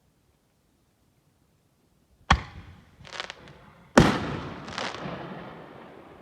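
Snake Bite Super Bullet artillery shell fireworks going off: a sharp bang about two seconds in, then a louder bang about a second and a half later. A further burst follows and trails off.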